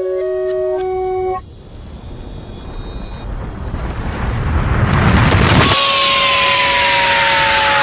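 A short organ-like music phrase ends about a second and a half in; a rushing noise then builds up, and near the end a vacuum cleaner is running loudly with a high whine that slowly falls in pitch.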